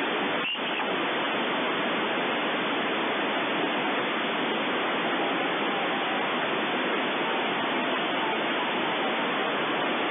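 Static hiss from a WinRadio WR-31DDC receiver tuned to an empty stretch of the 27 MHz CB band: steady band noise with no station heard. There is a brief dip in the hiss about half a second in.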